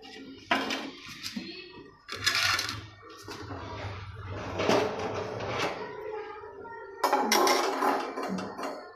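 Metal baking tray and wire oven rack of a countertop electric oven being handled and slid out, a series of clattering, scraping bursts.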